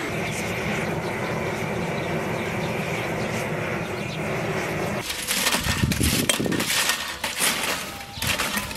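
Handheld gas blowtorch running steadily as it is held to lumps of charcoal to light them. About five seconds in the torch noise stops, and hard charcoal lumps clink and crack as they are knocked and shifted in the grill.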